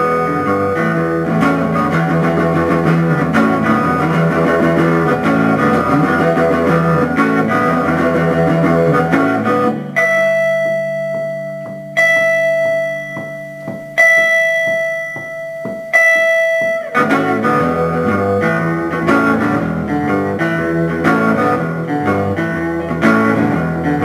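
Hollow-body electric guitar playing a blues riff as an instrumental break. About ten seconds in the riff stops for four single notes struck two seconds apart, each left to ring and fade, and then the riff resumes.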